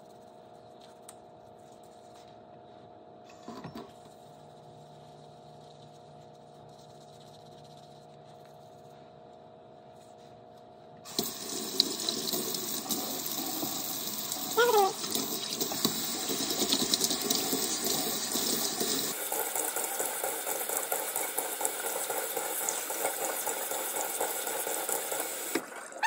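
Quiet room tone, then about eleven seconds in a sink tap is turned on and water runs steadily, with a short squeak partway through. About eight seconds later the stream changes to a duller sound, and it stops just before the end.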